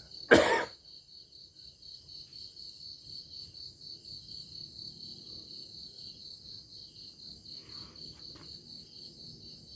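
Insect chirping in a steady, rapid pulse, with one short, loud noise about half a second in.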